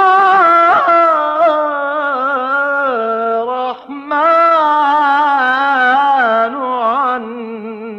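Solo male voice singing an Islamic ibtihal: long held melismatic notes with wavering ornaments, with a short break for breath just before four seconds in.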